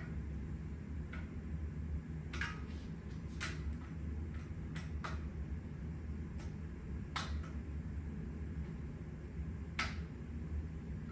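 Scattered sharp clicks and light knocks of hand tools and bicycle parts being handled during disassembly, about eight in all at uneven intervals, over a steady low hum.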